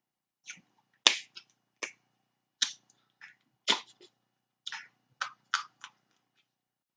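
About a dozen sharp, irregular snaps and clicks from eating snow crab legs close to the microphone: shells cracking and mouth noises.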